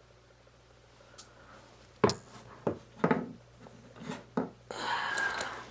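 Hand tools being handled: a few short sharp knocks, like chisels knocking together or being set down, then about a second of rustling near the end.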